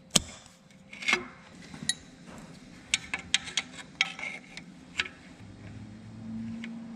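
Steel hand tools clicking and clinking against a metal hose fitting: an open-end wrench and locking needle-nose pliers being set on and worked around the fitting to loosen a worn hose. About a dozen irregular sharp clicks, with a faint low hum coming in during the second half.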